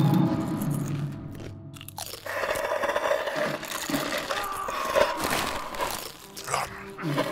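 Sound effects of an animated fight scene: a held musical chord fades out in the first second, then a sharp crack about two seconds in is followed by a dense run of noisy effects with a falling tone midway.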